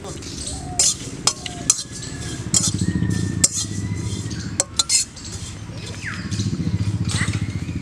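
A metal spatula stirring and scraping spice seeds around a dry metal wok, with several sharp clinks as it strikes the pan against a continuous scraping rattle.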